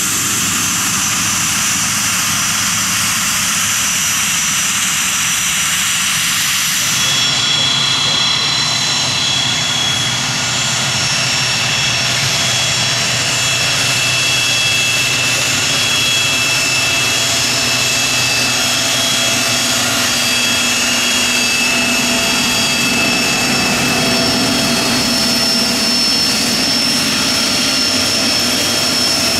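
Turbofan engines of taxiing business jets, running steadily. About seven seconds in the sound changes abruptly to a Learjet's engines at taxi power, with a steady high whistle over the roar.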